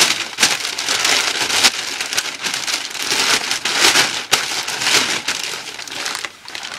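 White packing paper being pulled out of a cardboard box and crumpled: a dense, continuous crinkling and rustling, full of sharp crackles, that eases off near the end.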